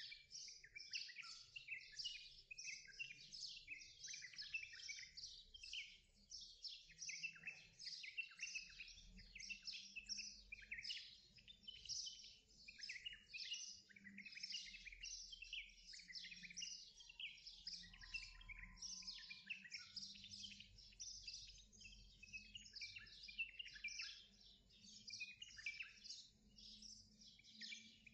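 Faint birdsong: many small birds chirping quickly and continuously, one chirp overlapping the next.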